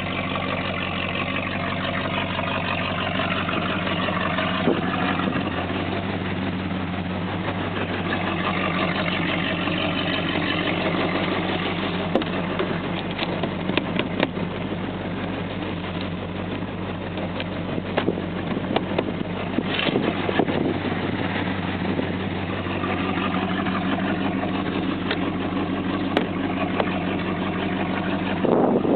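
1983 Chevy Silverado pickup engine idling steadily while it warms up after a cold start. Scattered scrapes and knocks from about halfway through and again near the end come from a broom brushing snow off the truck.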